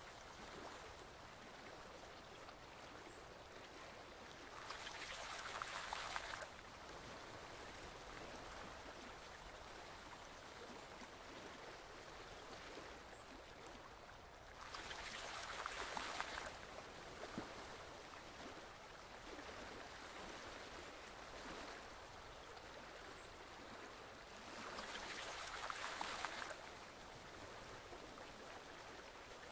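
Forest stream flowing steadily, a soft even rush of water that swells louder for about two seconds three times, roughly ten seconds apart.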